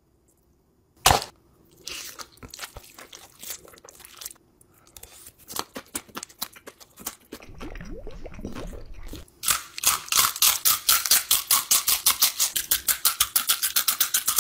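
Close-up eating sounds: quiet wet slurping and chewing of saucy noodles, then, from about nine seconds in, loud, fast, evenly paced crunching of rolled tortilla chips (red Takis) being bitten and chewed.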